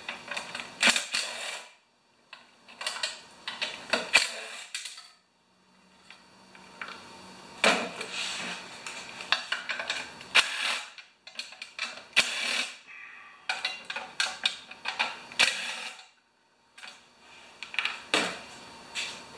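Cordless drill-driver running in short bursts, backing out bolts on top of a Tecumseh mower engine to get at its ignition coil, with clatter of metal tools and parts being handled.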